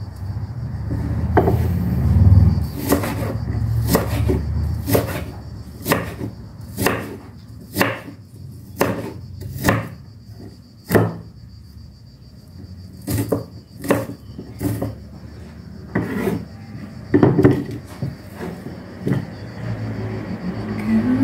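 Knife chopping on a cutting board: a long run of separate, irregular chops, roughly one or two a second.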